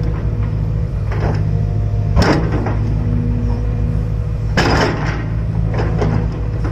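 Hydraulic excavator's diesel engine running steadily, with sharp knocks from the bucket and arm about a second in, two seconds in, and a pair near the middle.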